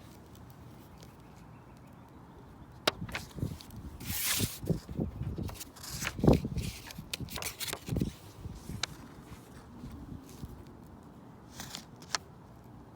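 Close handling noise: a cluster of sharp clicks, scrapes and paper-like rustles through the middle, then two more clicks near the end, over a faint outdoor background.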